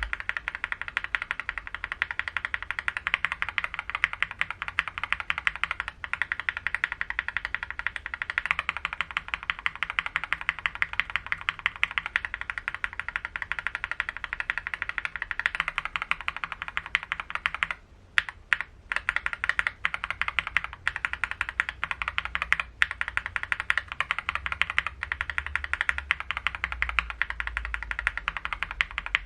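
Typing on a mechanical keyboard fitted with Akko linear switches: a rapid, steady run of keystroke clacks, with a brief pause a little over halfway through.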